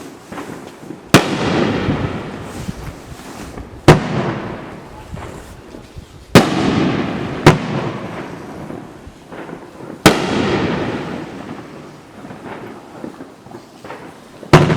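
Consumer 1.4G aerial fireworks from a Dominator Mammoth aerial assortment going off: six sharp bangs a few seconds apart, each trailing off over a second or two, with smaller pops between the later ones.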